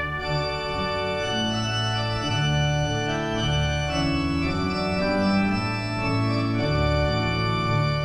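Organ music: held chords over a bass line that changes note every second or so.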